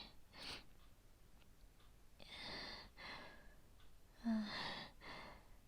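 A woman breathing heavily and unevenly, in two long breathy in-and-out breaths, the second opening with a short low groan: the laboured breathing of someone fighting nausea.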